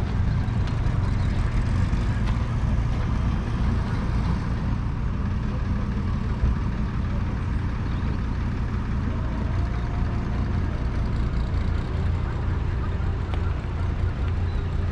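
1941 Ford Ferguson 9N tractor's 2.0-litre four-cylinder flathead petrol engine running at a steady speed.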